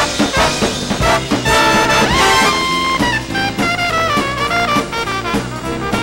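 Big-band swing music led by brass (trumpets and trombones), with a steady beat.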